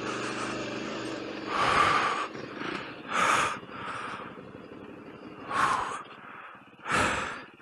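A rider breathing heavily and out of breath, four loud breaths about a second and a half apart. Under the first breath a motorcycle engine idles low and fades away.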